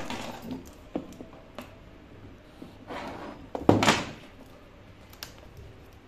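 Plastic shrink-wrap on a phone box being picked at and torn open by fingers: scattered light taps and clicks, with a louder crinkling crackle of the film at about three seconds and again, loudest, a little before four seconds.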